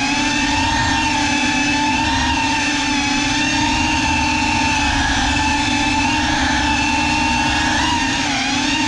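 GEPRC Cinelog35 cinewhoop's brushless motors and ducted propellers whining steadily in flight, the pitch wavering slightly with throttle and dipping briefly near the end.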